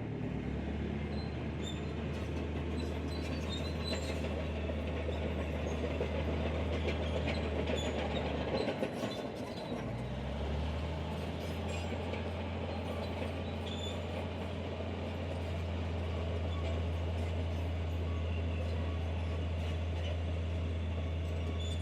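Heavy diesel earthmoving machinery running steadily with scattered metallic clanks. About nine seconds in the engine note drops out briefly and comes back at a new pitch, then holds steady.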